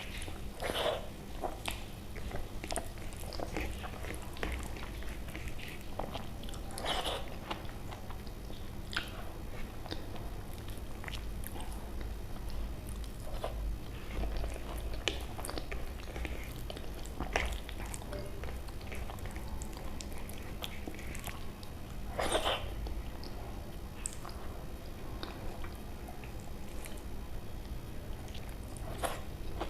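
Close-miked eating sounds of a person chewing and smacking a mouthful of soft daal khichdi with side dishes: irregular small wet clicks, with a few louder smacks.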